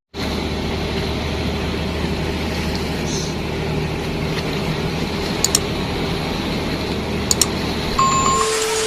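A boat engine running steadily, with a couple of faint clicks. Near the end the low engine drone gives way to a steady single-pitched hum.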